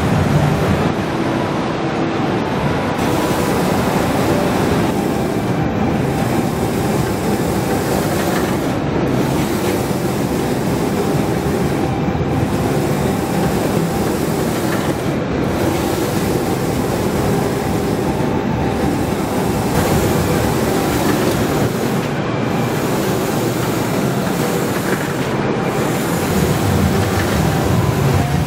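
Leopard M3300 wide-format UV hybrid printer running, a steady mechanical noise with a brief regular change about every three seconds, in time with the print carriage passing back and forth across the bed.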